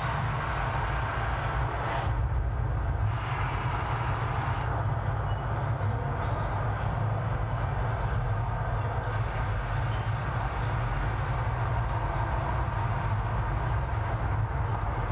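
Steady low rumble of highway traffic heard from beneath elevated expressway ramps, with short high chirps from about ten seconds in.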